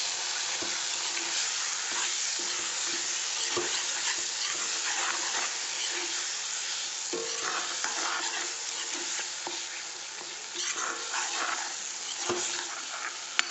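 Fish frying in an oily spice masala in a kadai, sizzling steadily while a spatula stirs and scrapes through it. A single sharp knock of the spatula against the pan comes near the end.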